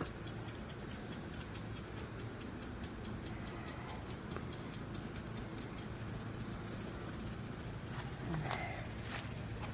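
Steady buzzing of a honeybee colony around its opened hive, with a fast, regular ticking over it for the first couple of seconds.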